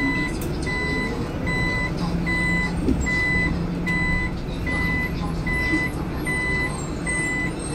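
An electronic warning beeper on a city bus sounds an even, high beep about one and a half times a second as the bus turns through an intersection. It is the turn-signal beeper common on Chinese city buses, heard over the bus's low running rumble.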